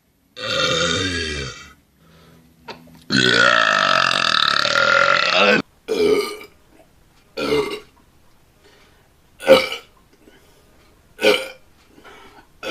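Loud belching: a burp of about a second and a half, then a long, wavering belch of about two and a half seconds, followed by four short burps spaced a second or two apart.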